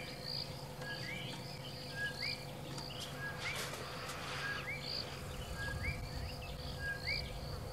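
Outdoor bush ambience: a small creature's short chirping call repeating about once a second, a flat note followed by a rising one, over a low steady hum.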